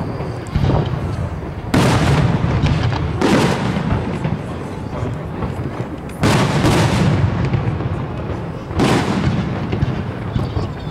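Aerial fireworks shells bursting overhead: about five sharp booms, each trailing off in a rolling rumble, over a continuous low background din.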